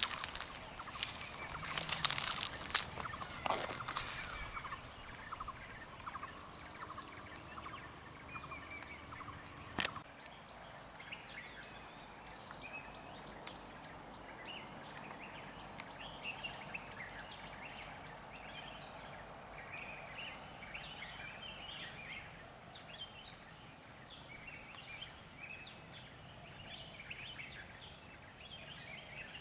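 Forest birdsong and insects: a run of loud bird calls in the first four seconds, a single sharp click about ten seconds in, then many faint short chirps over a steady high insect drone.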